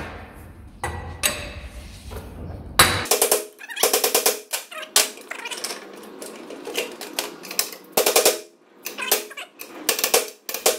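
A steel hand tool scraping and tapping on a wheel hub and old bearing race clamped in a steel vise: bursts of rapid, rattling metallic clicks with a ringing edge. A low hum under the first three seconds stops abruptly.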